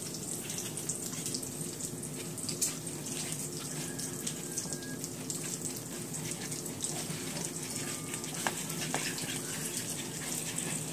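A small whisk stirring pancake batter in a plastic mixing bowl, with scattered light clicks and scraping against the bowl. Under it, a steady sizzling hiss from bacon frying.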